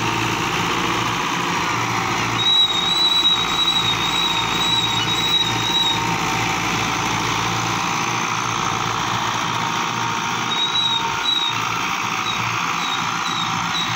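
Fiat 640 tractor's diesel engine running steadily under load while pulling a tillage implement through dry soil. A thin high whistle comes and goes over the engine noise.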